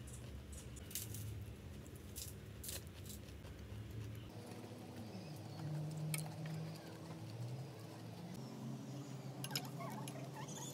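A metal spoon clicking against a glass bowl several times as cornflakes in milk are stirred and scooped, over a faint steady low hum.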